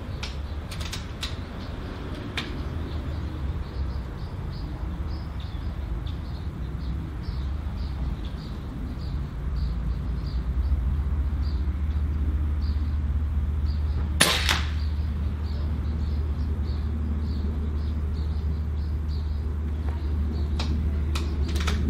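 A single shot from a Cometa Orion bullpup .22 (5.5 mm) regulated PCP air rifle, a sharp crack with a short tail about two-thirds of the way in, after a long quiet aim. Faint, regular chirping about twice a second and a low steady rumble run underneath.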